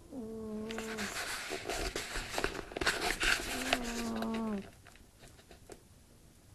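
A sleeping cat snoring like a person. A droning snore note sags slightly in pitch, then comes a long rasping breath, then another droning note that dies away about four and a half seconds in.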